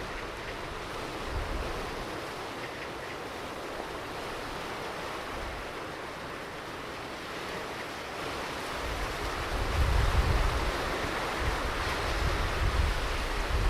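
Ocean surf washing onto a beach in a steady rush that swells louder in the second half, with low gusts of wind buffeting the microphone from about two-thirds of the way in.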